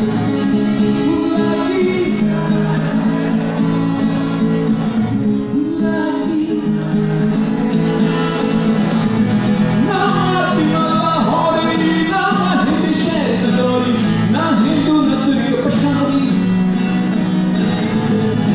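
Man singing into a microphone while playing an acoustic guitar, a live solo song with guitar accompaniment.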